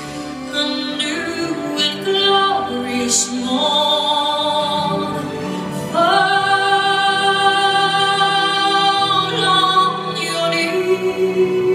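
A slow song sung by a woman's voice over accompaniment, with a long held note from about halfway through.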